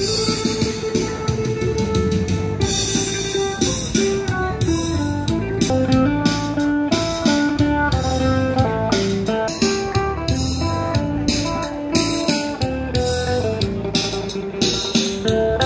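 Phin (northeastern Thai lute) playing a plucked melody of quick single notes.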